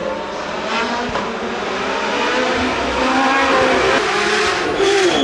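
Race car engine at high revs, pitch repeatedly rising and dropping back as it shifts up through the gears, getting steadily louder as the car approaches.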